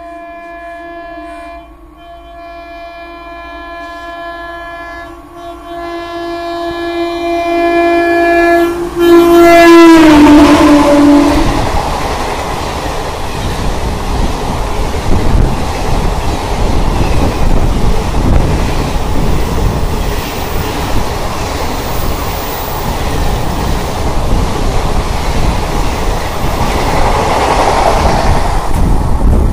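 A WAP-4 electric locomotive's horn sounds a long steady blast as the train approaches at 110 km/h, growing louder and dropping in pitch as the locomotive passes about ten seconds in. The passing coaches then follow, with a loud steady rush and the rattle of wheels on the rails.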